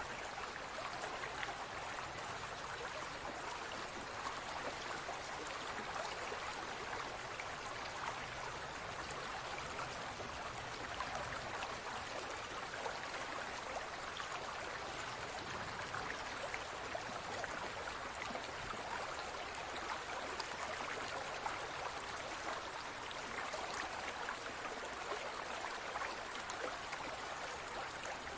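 Water in a large aquarium trickling and bubbling steadily, with many tiny splashes and pops.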